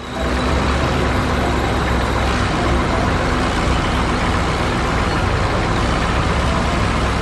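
Heavy truck engine running steadily, a deep rumble under an even rushing noise, cutting in suddenly.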